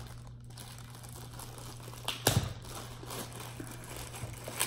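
Clear plastic packaging crinkling as it is handled, with one sharper, louder handling noise a little past halfway.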